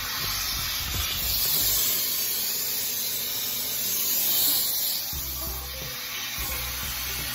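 HART 10-gallon wet/dry shop vacuum running, a steady hissing rush of air through its crevice tool that swells and eases slightly as the nozzle moves.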